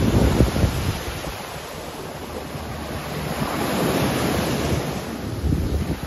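Ocean surf breaking and washing up onto a sandy beach, with wind buffeting the microphone in gusts, strongest in the first second and again near the end.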